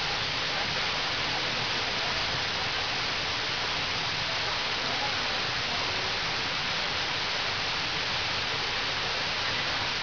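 A steady, even hiss, strongest in the upper range, with no distinct events in it.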